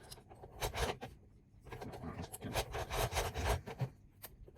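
Small metallic scraping and rubbing with clusters of short clicks as picking tools work in the keyway of a Bi-Lock cam lock.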